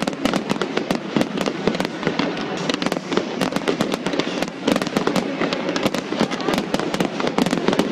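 Fireworks going off in dense, rapid crackling pops, many a second and without a break, over a steady hiss.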